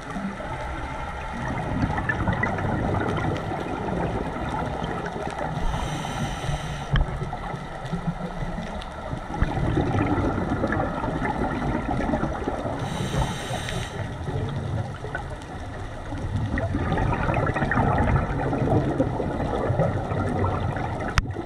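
Scuba diver's regulator breathing, heard through an underwater camera housing. Two short hissing inhales, about six and thirteen seconds in, each followed by a long gurgling rush of exhaled bubbles.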